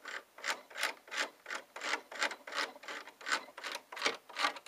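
Rotating mechanism on a 2010 AT-AT Walker toy being turned by hand to raise its troop deployment rack: a repeated plastic rasping, about three strokes a second.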